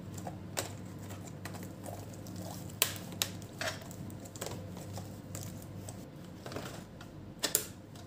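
Scattered plastic clicks and taps of a laptop keyboard being pressed down by hand to seat it in an Asus A44S laptop's case, with a couple of louder knocks near the end.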